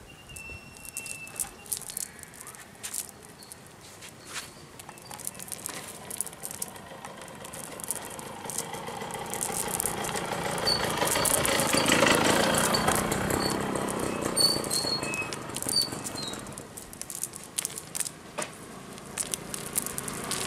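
A nylon cast net being lifted and shaken out by hand over the ground: the mesh rustles and its lead sinkers click and rattle. A broad rushing noise swells up in the middle and fades again, and a few short high chirps sound over it.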